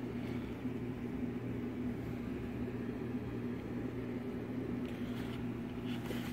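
Steady low hum of room background noise, with faint rustling about five seconds in.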